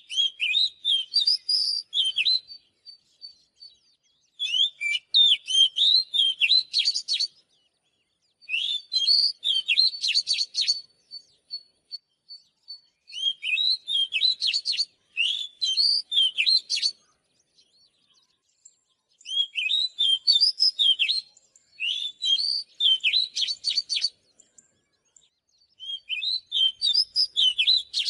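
Oriental magpie-robin singing: quick, varied whistled phrases of about two to four seconds each, separated by short pauses.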